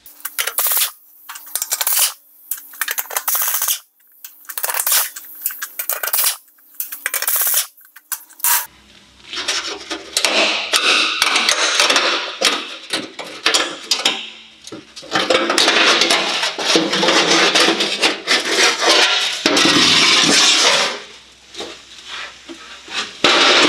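A ratchet undoes the 10 mm bolts of a car's underbody heat shield in about eight short bursts. Then the thin sheet-metal shield scrapes and rattles against the underbody as it is worked free.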